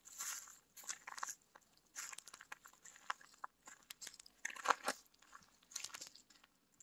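Irregular crunching footsteps on a gravelly trail strewn with dry leaves and twigs, with the loudest crunch a little under five seconds in.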